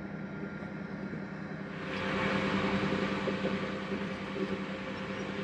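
Petrol pouring from a jerry can through a spout into a portable outboard fuel tank: a splashing hiss that starts about two seconds in and eases off later. A steady low mechanical hum continues underneath.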